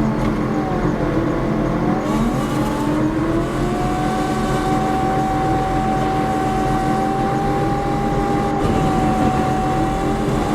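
Car engine and road noise while driving. The engine's pitch rises about two seconds in, then holds steady.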